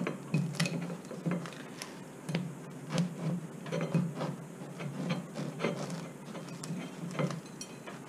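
A crusty bread roll being sawn open with the large blade of a Victorinox Ranger pocket knife: back-and-forth strokes with short, irregular crackling crunches of the crust, several a second.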